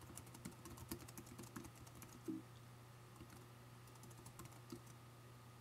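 Faint typing on a computer keyboard: a quick run of keystrokes for about two and a half seconds, then a few scattered ones, over a low steady hum.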